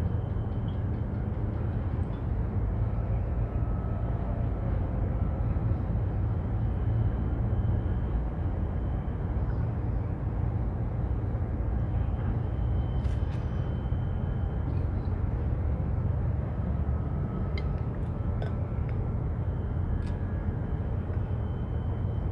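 Steady low outdoor rumble of harbourside background noise, with a few faint clicks in the second half.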